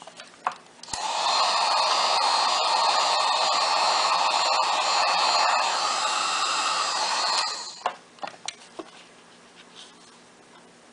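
Hot-air heat gun blowing steadily, switched on about a second in and off near the end, about seven seconds of running; heat to soften the adhesive holding the phone's touch screen. A few small clicks of handling sit before and after it.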